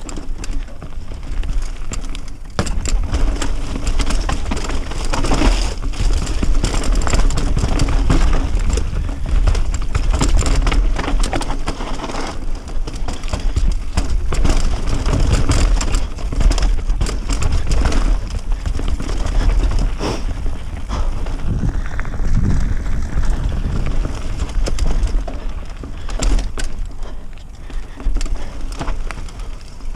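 Mountain bike riding fast down a rocky, rooty dirt trail: wind rumbling over the action camera's microphone, with tyres crunching over dirt and stones and the bike rattling and knocking over rocks and roots.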